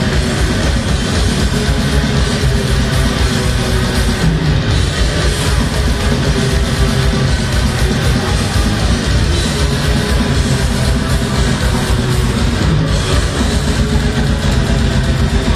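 A death metal band playing live at full volume: distorted electric guitars and bass over a drum kit, loud and unbroken throughout.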